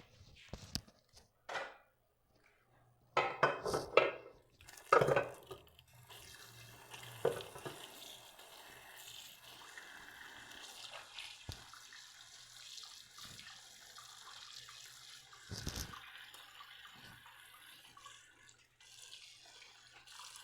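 Dishes and utensils clattering in a sink, then a kitchen tap running steadily for about fifteen seconds, with one more knock partway through.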